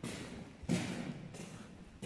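Footsteps on a hard floor: three evenly paced steps, the second the loudest.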